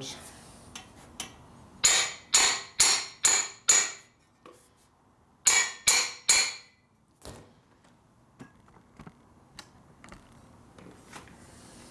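Hammer blows on a steel exhaust pipe to stretch its end bigger: five quick ringing metallic strikes, a pause, then three more.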